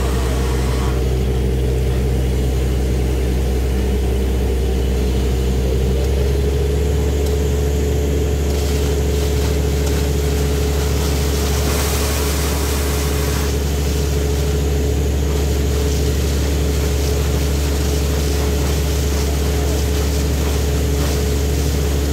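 Truck-mounted borewell drilling rig running at a steady drone, its engine and high-pressure air compressor driving the drill, while compressed air blows muddy water and rock cuttings out of the bore top with a splashing hiss. The engine note rises slightly about six seconds in, and the spray swells in the middle.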